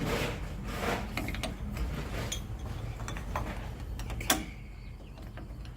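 Small metal clicks and scrapes of deadbolt lock parts being handled and fitted, with one sharp, loud click a little after four seconds in.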